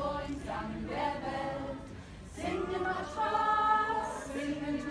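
A group of mostly women singing together unaccompanied. After a brief lull about two seconds in, they hold one long note, the loudest part.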